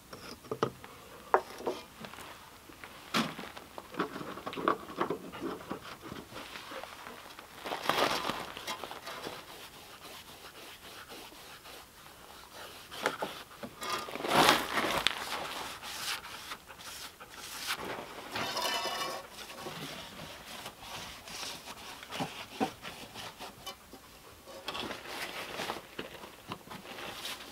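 Scattered clicks, taps and short brushing rubs as a brush is dipped in a bowl of liquid finish and worked onto a wooden board, with liquid poured from a plastic jug at the start.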